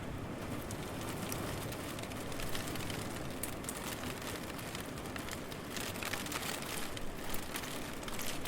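Steady city rain falling, with scattered close drips ticking over the hiss, busier about six to seven seconds in, and a low rumble underneath.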